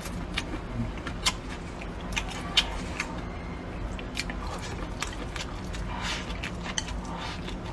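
Someone eating cold-dressed fish skin in chili oil: chewing, broken by sharp crisp clicks of biting at irregular intervals, roughly once a second.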